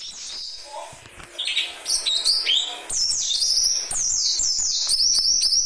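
Small birds chirping in rapid, high, downward-sliding chirps that overlap thickly and grow louder about halfway through.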